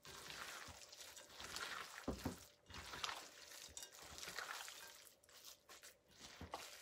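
Hands kneading and squeezing a wet meatloaf mixture of raw ground beef, eggs, water and stuffing mix in a bowl: faint, irregular squelching and squishing.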